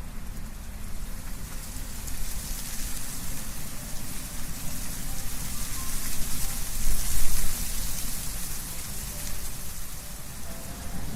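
Wind rustling through tree leaves, a steady hiss that swells in a gust about six seconds in and then eases, over a low rumble.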